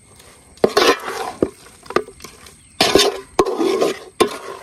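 Perforated metal ladle stirring spice-coated rabbit meat in a large metal pot: several scraping strokes against the pot, with sharp knocks of the ladle on the metal in between.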